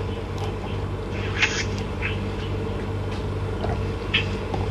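Eating mouth noises: a few short wet smacks and clicks, over a steady low hum.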